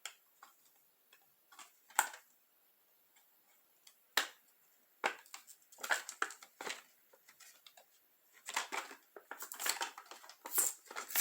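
Foil wrapper of a Yu-Gi-Oh booster pack crinkling and tearing as it is opened by hand: scattered sharp crackles with pauses between, growing denser and louder in the last few seconds.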